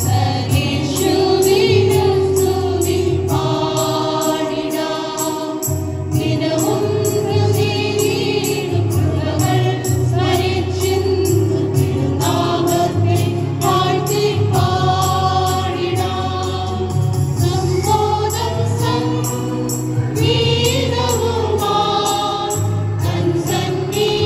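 Mixed group of women and men singing a hymn-like song together in unison over an accompaniment with a steady beat and bass.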